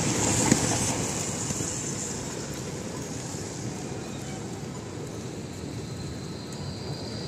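City street traffic noise at a tram intersection: a steady rumble and hiss of vehicles with a Melbourne tram moving through, loudest in the first second and easing off after. A short click sounds about half a second in.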